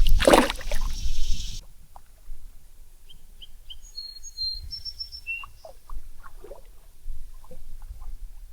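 A brief splash of water that stops abruptly about a second and a half in. It is followed by birds calling with short, high chirps and a few lower calls.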